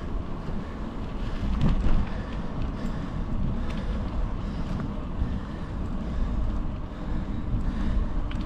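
Wind rumbling on the microphone of a moving bicycle, a steady low buffeting with a few light clicks.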